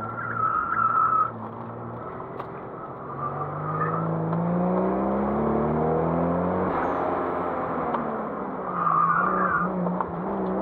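Toyota Supra MK4's twin-turbo 2JZ inline-six, heard from inside the cabin, pulling hard with its pitch rising from about three seconds in until a break near seven seconds, then running steadier. Tires squeal briefly near the start and again near the end as the car is pushed through corners.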